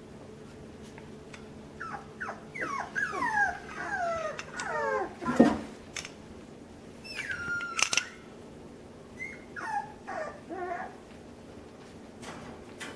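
Miniature American Shepherd puppies whining and whimpering, a run of quick calls each falling in pitch, then a few shorter whines about ten seconds in. There are two sharp knocks, one about five seconds in and one about eight seconds in, over a faint steady hum.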